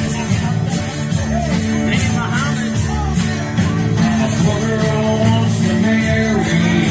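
Live 1970s rock cover song: a man singing into a microphone while strumming an acoustic guitar, amplified through a PA.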